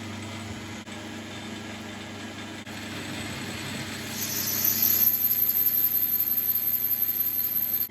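9-inch South Bend lathe running with a steady hum while horizontally boring 5/16 aluminium plate with a large boring head. About four seconds in the cut gets louder, adding a hiss and a thin high whine, which stop suddenly near the end.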